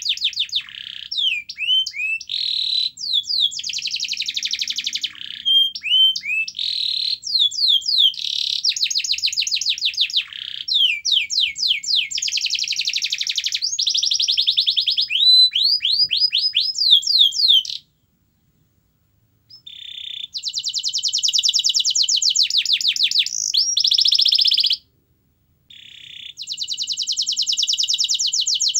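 Domestic canary singing a long song of fast trills and rolls: rapid runs of repeated high notes mixed with quick downward-sweeping whistles. The song cuts out completely for about a second and a half a little past halfway, and again briefly near the end.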